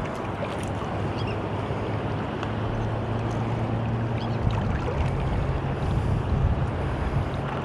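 Rough surf washing on the beach with wind buffeting the microphone, over a steady low hum.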